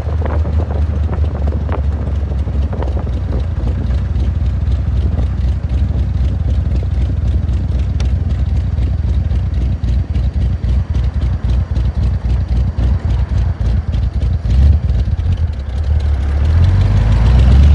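1949 Allard's engine running under way, heard from the open cockpit with wind and road noise. About ten seconds in, the engine note drops back and turns uneven as the car slows, then rises and gets louder near the end as it accelerates again.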